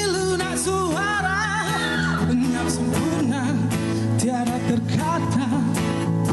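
Pop song with a lead singer over a band, with bass and regular drum hits.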